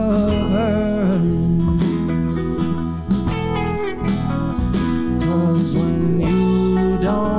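Live Americana band playing a song: acoustic and hollow-body electric guitars over keyboard and drums, with some notes bending in pitch.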